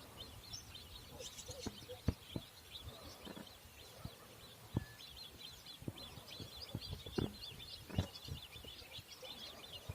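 A chorus of small birds chirping, with many short, high chirps overlapping without a break. A few soft low knocks are scattered through it.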